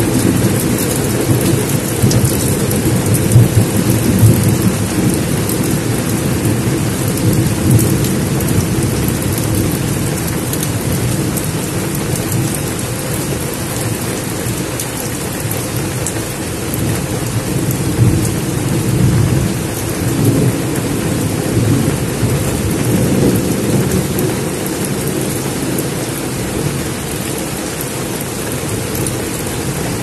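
Heavy tropical downpour on palm and broad-leaved foliage: a steady, dense hiss of rain with a continuous low rumble underneath that swells slightly a few seconds in and again a little past the middle.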